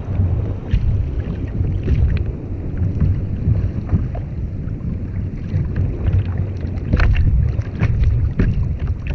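Wind buffeting the camera's microphone on open water, a gusting low rumble, with a few short sharp splashes or knocks of water against the kayak.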